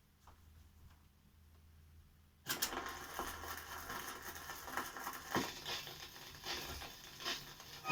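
Near silence, then about two and a half seconds in an irregular crackling and clicking noise starts suddenly and runs on, at a low level.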